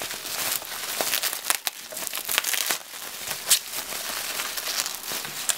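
Bubble wrap crinkling and rustling as hands pull it off a small cardboard box, with scattered sharp crackles and clicks.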